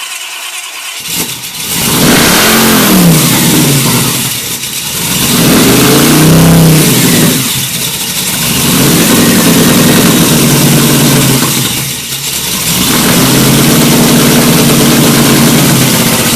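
Supercharged, injected small-block Chevy V8 (6-71 blower, Hilborn injection) cranking and catching about a second in on its first start, then running loud and uneven, its speed surging up and sagging back several times.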